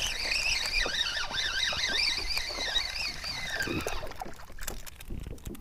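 Spinning reel cranked steadily to bring in a hooked fish. It gives a high whine that wavers up and down with the turns of the handle and fades out about four seconds in, followed by a few faint clicks.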